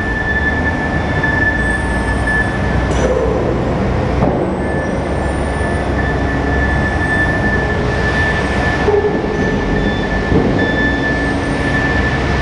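Kalmar 45-ton forklift running under load while its ingot clamp handles a hot ingot: a dense, steady rumble with a high, steady whine on top. The whine drops out briefly about three seconds in and again near nine seconds.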